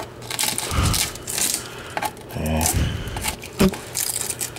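Irregular scraping and crackling with a few sharp taps as loose undercoating and rusted sheet metal on the underside of a VW Type 2 bus are picked and broken away. The undercoating is coming off because it has trapped moisture against the metal and rotted it.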